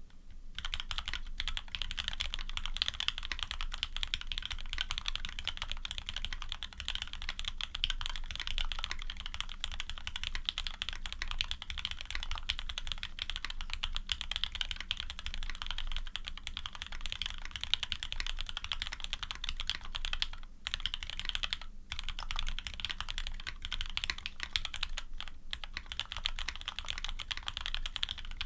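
Steady, fast typing on a Serratus custom mechanical keyboard with lubed frankenswitches (Cherry top housings on H1 bottoms, Krytox 105 and 205, 62 g springs, films) in an aluminium plate, with GMK keycaps and Cherry stabilizers. It is a dense stream of keystrokes with a few brief pauses, around 20 and 22 seconds in and near 25 seconds.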